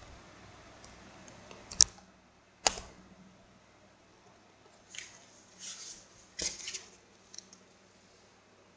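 Handling noise on a desk: two sharp clicks a little under a second apart, about two seconds in, then a cluster of knocks and scrapes around five to seven seconds in.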